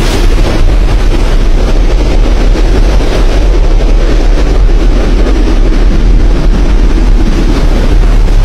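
Strong storm wind buffeting the microphone: a loud, steady rumbling noise with no break.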